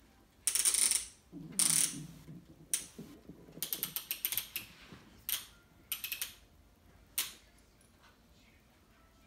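Plastic toy doctor's kit device clicking and rattling in short ratchet-like bursts as it is handled and pressed, one a quick run of clicks in the middle, then quiet for the last couple of seconds.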